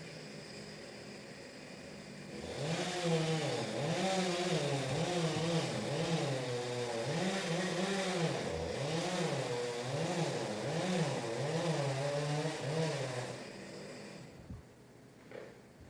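Chainsaw engine running at low speed, then from about two and a half seconds in revving up and dropping back over and over, roughly once a second, before fading away near the end.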